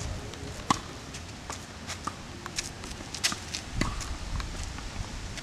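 Tennis rally: sharp knocks of racket strikes on the ball and its bounces, two louder hits about two and a half seconds apart, with lighter footsteps and scuffs on the court between them.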